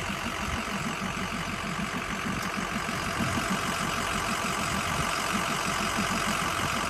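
Truck engine idling steadily, a regular low pulsing with a hiss above it.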